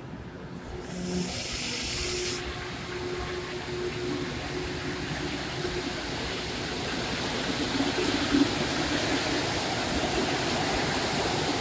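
Rubber-tyred Montreal metro train pulling out of the station and picking up speed, its rushing rolling noise growing steadily louder. There is a brief hiss about a second in and a faint steady hum under the start.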